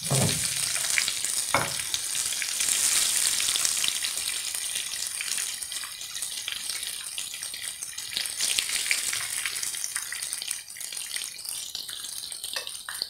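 Stuffed tinda (round gourds) sizzling in about half a cup of hot oil in a non-stick kadhai as they are lifted out after frying on both sides. A couple of utensil knocks against the pan come near the start, with lighter clicks later.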